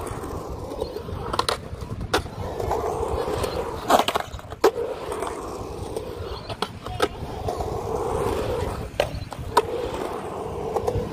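Skateboard wheels rolling on concrete skatepark ramps, the rumble swelling and fading as the rider rolls up and down the transitions. Several sharp clacks of the board and wheels hitting joints and edges cut through it, with a cluster of them about four seconds in.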